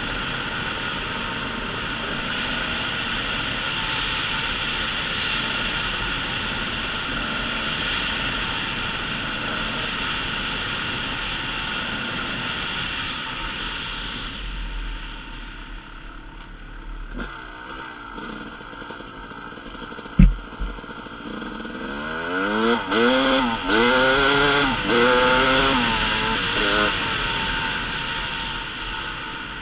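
Dirt bike engine running at a steady cruise with rushing air noise, then easing off. A single sharp knock comes about twenty seconds in, then the engine revs up and down several times in quick succession.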